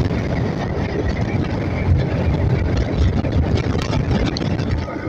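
Yamaha FZ motorcycle's single-cylinder engine running steadily while the bike cruises along a road, mixed with the rush of wind and road noise at speed.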